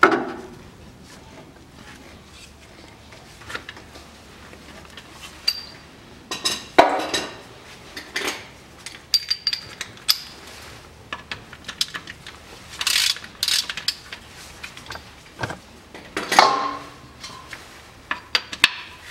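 Metal hand tools clanking and clicking on a tight transfer-case drain plug as it is worked loose with a wrench and socket, irregular sharp knocks, some ringing briefly like struck metal.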